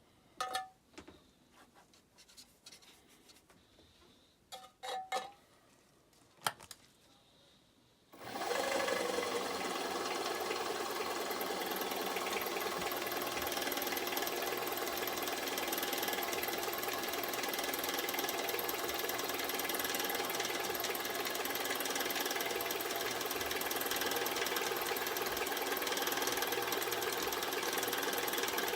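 A few light clicks and knocks, then about eight seconds in a milling machine comes in abruptly and runs steadily, with a fine, even mechanical texture.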